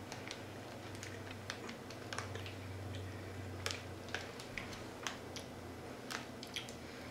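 Sparse, irregular crisp clicks and crunches from someone chewing baked potato puff snacks, over a faint steady low hum.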